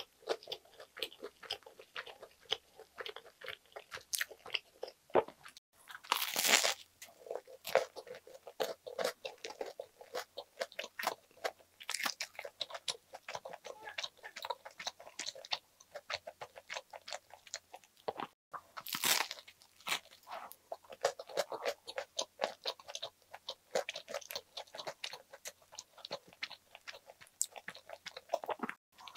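Close-miked chewing of a soft bread-roll sandwich with ham: steady wet mouth clicks and smacks, with three louder bites about six, twelve and nineteen seconds in.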